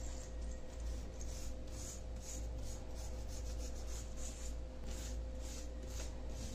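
Toothbrush bristles scrubbing a wet silver anklet chain against a stone counter, in short repeated strokes about two to three a second. This is the light brushing that lifts the dirt loosened by boiling in detergent, salt and lemon.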